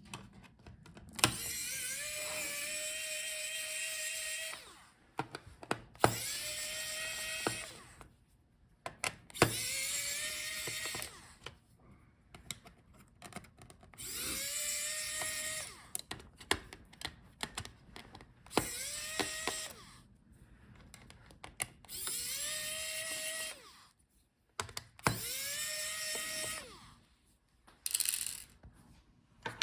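Small power screwdriver backing out laptop case screws: seven short runs of a steady motor whine, each spinning up quickly at its start, with light clicks and taps of screws and parts between the runs.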